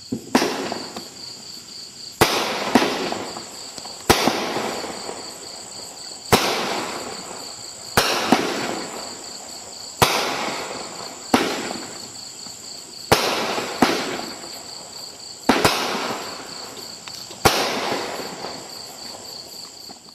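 Winda 'Broken Heart' 200g fireworks cake firing its shots, a sharp bang about every two seconds, each followed by a fading hiss and crackle. A steady, high insect chirring, as of crickets, runs underneath.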